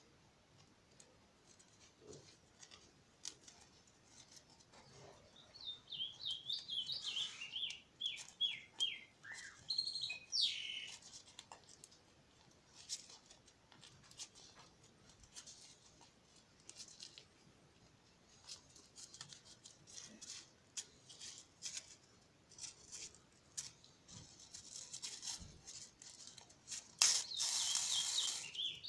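A bird chirping in a quick run of short notes that step down in pitch, with faint scattered clicks and rustles, and a brief loud rustle near the end followed by more chirps.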